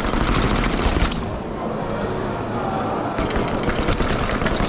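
A mountain bike ridden down stone stairs and over a hard polished floor: dense rattling and clattering knocks in the first second, smoother rolling after that, then another run of rapid clicks and rattles from about three seconds in, all over a steady rumble.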